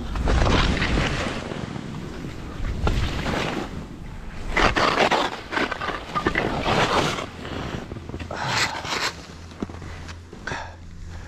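Skis hissing and scraping through soft snow in a run of short turns, one swish after another. Under it, wind rumbles on the helmet microphone.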